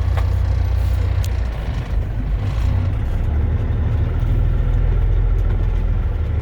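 Heavy truck's diesel engine pulling steadily in low gear at slow speed, a deep even rumble with a few faint clicks and rattles over it.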